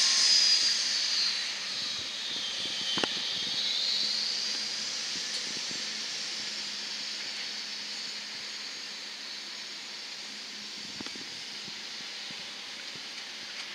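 Embraer ERJ-145 regional jet's rear-mounted turbofans at taxi power: a high whine that dips in pitch about three seconds in and rises again, then fades into a steady rushing hiss.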